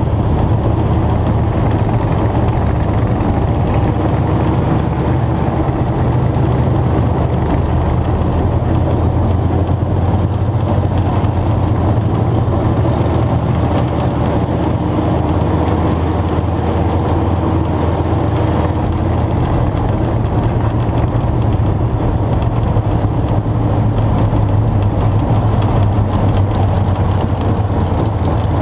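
Vintage dirt-track stock car's engine running steadily at part throttle, heard up close from the hood next to its air cleaner, with no hard revving.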